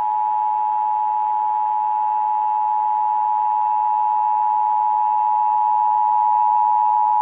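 Emergency Alert System attention signal: the two-tone alert tone of 853 and 960 hertz sounded together, held steady and loud. It marks the start of a required monthly test broadcast.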